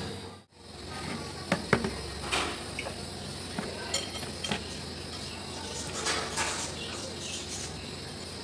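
Steel spoon clinking and scraping against a plastic bowl of pakora batter as vegetable slices are dipped in: a string of light taps and clinks, with a cluster of scrapes about six seconds in.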